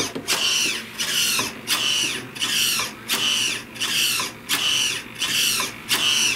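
An old Futaba hobby servo whining as a servo tester on auto sweeps it back and forth, driving an aileron through its push rods. A short whine about every two-thirds of a second, one for each stroke, each falling in pitch.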